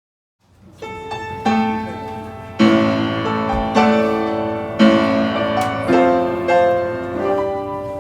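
Piano playing the introduction to a song, starting after a brief silence with a steady series of struck chords that grow louder about two and a half seconds in.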